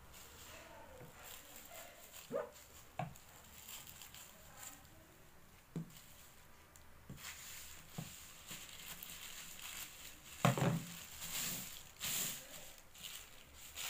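Scissors cutting through a stack of folded plastic bags, a few separate snips, then a louder knock. Near the end comes the rustle of a thin plastic carrier bag being smoothed flat by hand.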